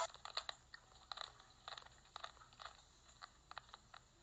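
Faint, irregular clicks and crunches, a few a second.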